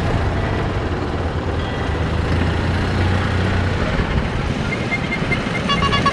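Engines of a side-by-side utility vehicle and a GMC pickup truck running at low speed as they pass, a steady low rumble. Near the end a short run of repeated high-pitched tones sounds.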